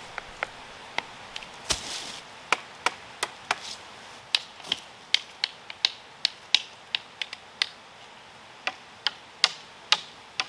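Dry wood clicking and knocking: a string of sharp, irregular taps, two or three a second.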